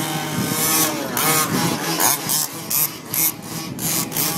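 Small two-stroke engines of gas-powered Baja RC cars buzzing and revving up and down as the cars race.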